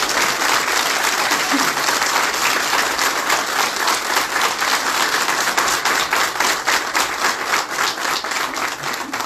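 Audience applauding and clapping, a dense stretch of many hands that dies away near the end.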